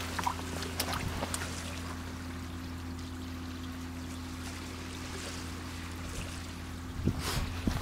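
A boat engine running with a steady low hum, over a haze of water noise. A few short clicks come about a second in and again near the end.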